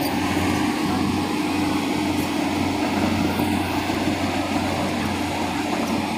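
Diesel engines of several Hyundai crawler excavators running with a steady low drone while they hold a coated steel pipeline on slings during lowering-in to the trench.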